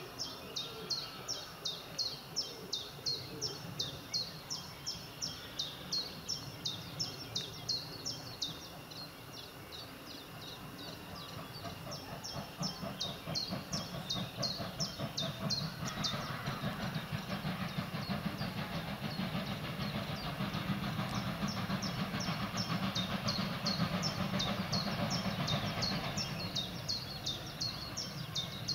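A DRB Class 52 2-10-0 steam locomotive hauling a train, its rumble swelling as it approaches and loudest a few seconds before the end. Over it a bird repeats a quick, high, falling chirp about twice a second, with pauses partway through.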